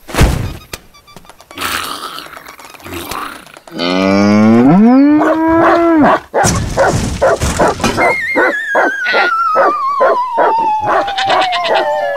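Cartoon sound effects. A sharp hit at the start, then a dog howling about four seconds in, rising in pitch and then held. After that comes a string of quick knocks under a long falling whistle as a bone flies through the air.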